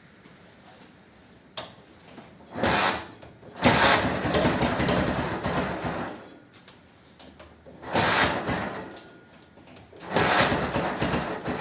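Ural flat-twin motorcycle engine being started: a click, then several loud bursts as it fires and runs briefly, the longest lasting about two seconds and dying away.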